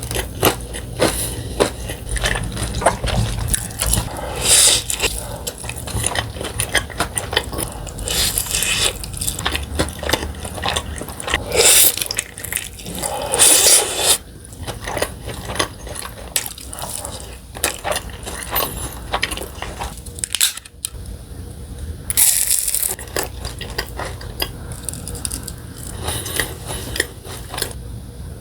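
Close-miked chewing and crunching of crispy fried chicken: wet mouth noises with repeated crackly bites, the loudest crunches coming in short bursts several seconds apart.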